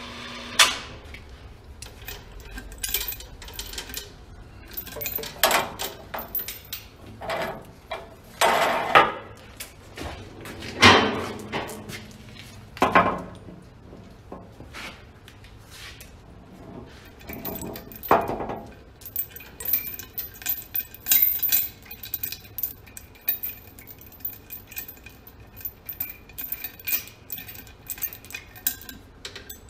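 Steel chain clinking and clanking against a Ford 9N tractor's cylinder head as a homemade chain puller, hooked to old spark plugs in the plug holes, is slackened and handled. Irregular sharp clanks come in the first two thirds, giving way to lighter, quicker jingling near the end.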